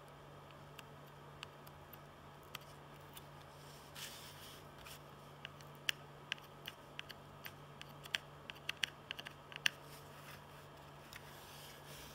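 Faint small clicks and ticks from hand-soldering an SOIC-8 chip on a circuit board with a soldering iron and tweezers, scattered at first and coming in a quick irregular run from about six to ten seconds in, over a low steady hum.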